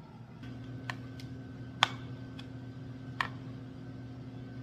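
A steady electrical hum switches on about half a second in, with a few sharp clicks and taps over it, the loudest just under two seconds in.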